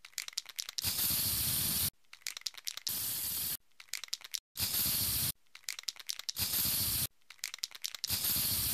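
Aerosol spray-paint can sound effect. About five times over, a quick run of rattling clicks is followed by a steady hiss of about a second, each cycle ending abruptly.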